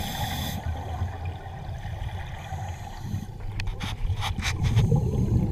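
Underwater ambience heard through a camera housing: a steady low rumble, with a short hiss of scuba exhaust bubbles at the start, then a run of sharp clicks in the second half.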